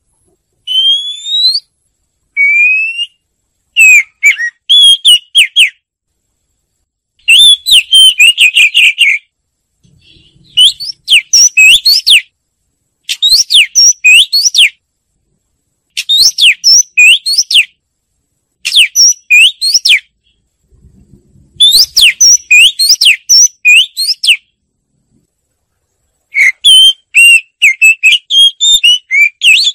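Oriental magpie-robin singing: loud phrases of clear whistles and rapid, varied gliding notes, each phrase a second or two long, with short pauses between them.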